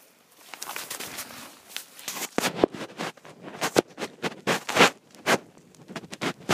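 A dog scrambling through wet fallen leaves close to the microphone: a quick, irregular run of rustles and scrapes, with sharper bumps in the middle.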